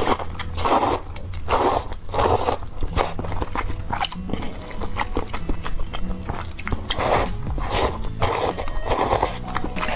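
Close-miked eating: a person biting and chewing food in repeated mouthfuls, each bite a short burst of noise.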